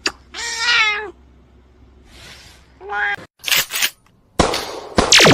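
A cat meowing: a long meow about half a second in and a shorter one about three seconds in, followed by louder noisy sounds near the end.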